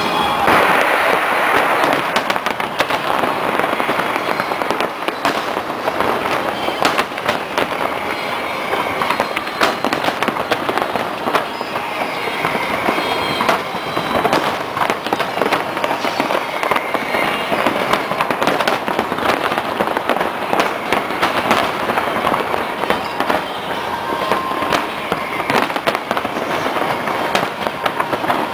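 Aerial fireworks display in full barrage: a dense, continuous stream of bursts, bangs and crackling, many shots a second with no pause.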